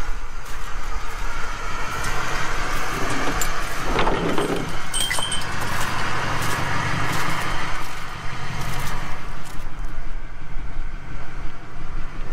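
Pickup truck engine idling steadily, with scattered footsteps and handling noises around it.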